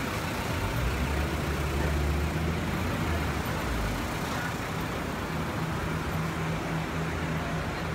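City street ambience: steady traffic noise with a low engine hum from nearby road vehicles, the hum heaviest during the first half.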